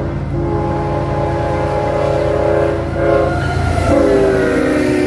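Diesel locomotive's multi-chime air horn blowing in long blasts with short breaks, over the low rumble of the locomotive. About four seconds in, the horn's pitch dips slightly as it goes by.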